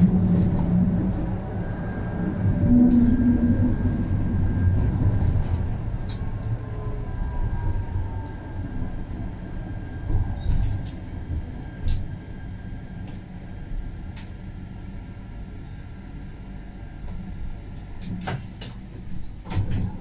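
Tram rolling on its rails, heard from inside the cab: a low rumble that fades as it slows, with a falling whine about a third of the way in. A few sharp clicks near the end.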